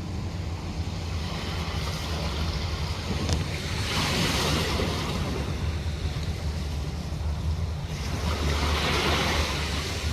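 Ocean surf breaking on the shore, with wind rumbling on the microphone; a wave washes in about four seconds in and another near the end.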